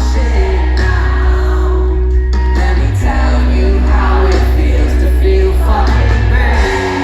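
Live band music with a heavy bass line and singing.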